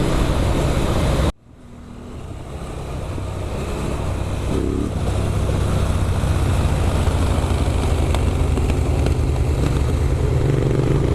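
Motorcycle engine running on the move, with wind and road noise. Just over a second in the sound cuts out abruptly, then fades back in over the next few seconds and runs steady.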